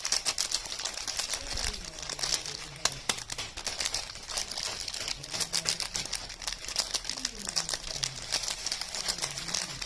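Soap wrappers being handled and unwrapped: a continuous, irregular crinkling and crackling of packaging made of many small quick crackles.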